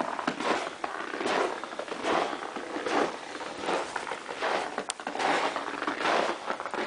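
Footsteps crunching on a packed-snow floor at a walking pace, about one step every three-quarters of a second, with a single sharp click near the five-second mark.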